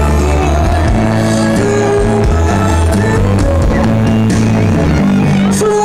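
Live band playing an instrumental passage on electric guitars, bass guitar and violin, loud and heard close to the PA speakers, with poor sound quality.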